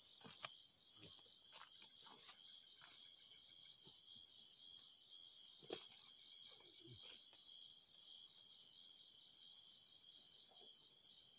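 Faint chorus of night insects chirping, a steady high-pitched trill that pulses rapidly and evenly, with a sharper faint click about midway.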